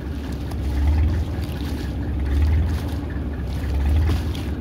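Fishing boat's engine running steadily with a low hum that swells a little now and then, the boat under way dragging a push net.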